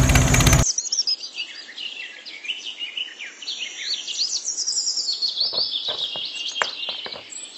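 A loud engine-like running noise cuts off abruptly under a second in, giving way to a chorus of small birds chirping and twittering. A few light taps sound near the end.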